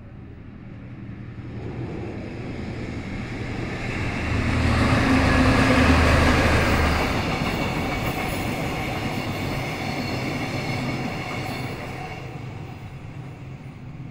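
A JR West DD51 diesel-hydraulic locomotive passing, its twin V12 diesel engines loudest about five to seven seconds in. A rake of six Chiki 5200 flatcars loaded with rails rolls by after it, and the wheel noise fades away near the end.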